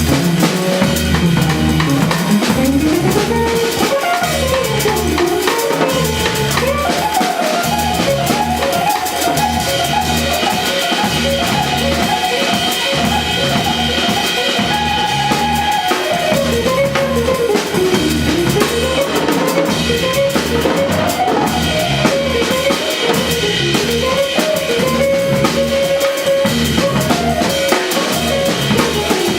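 Jazz trio music: a drum kit keeps a steady beat under a bass, with a melody line that glides up and down on top.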